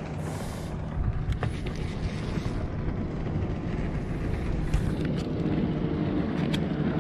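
Boat motor running with a steady hum that grows a little louder and fuller about five seconds in, over wind rumble on the microphone, with a few light clicks.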